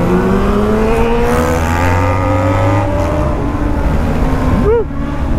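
Motorcycle engine accelerating, its pitch climbing steadily for about three seconds and then holding level. Near the end a short tone rises and falls.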